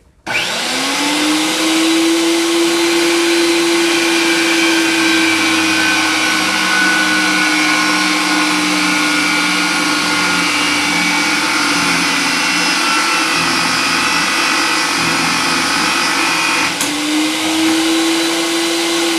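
Electric power pipe threading machine running, its die head cutting a second threading pass on a 20A pipe, feeding itself along the first-cut threads. The motor starts abruptly and its pitch sinks slowly under the cutting load. About 17 s in, the high cutting noise drops away and the motor speeds back up.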